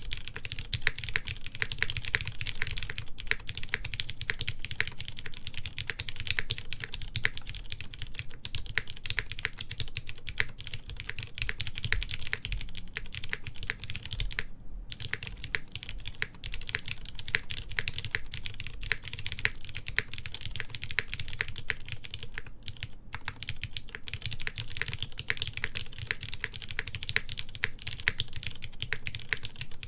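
Continuous fast typing on a Smith and Rune Iron165 R2 mechanical keyboard with lightly lubed Cherry MX Black linear switches, a forged carbon fiber plate and GMK keycaps. The keystrokes run together, with brief pauses about halfway and about three quarters through.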